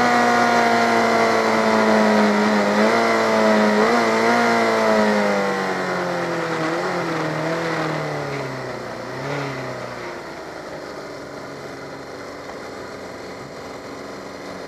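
Yamaha FZ600 inline-four engine heard onboard, its note falling steadily as the bike slows after the race, with several brief throttle blips on the way down. About two-thirds of the way in the engine note fades to a low, steady level as the bike rolls slowly, with wind noise on the microphone throughout.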